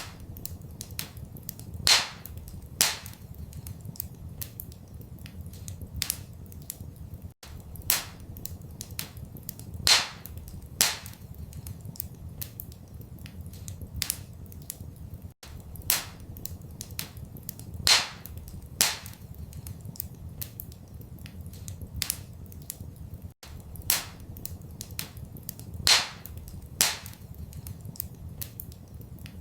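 Wood fire crackling in a fireplace: a constant patter of small snaps with a louder pop every second or so, over a steady low rumble. It is a looped recording, and the same stretch repeats about every eight seconds with a brief dropout at each join.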